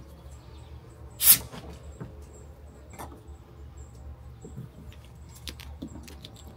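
Small plastic clicks and handling noises at an inflatable paddle board's air valve as the hand pump's hose is fitted to it. One short, sharp burst of noise comes about a second in.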